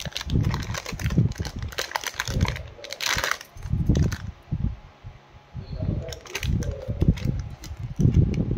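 Metal jewellery being handled: light clicks and clinks among dull handling bumps, with a short rustle about three seconds in.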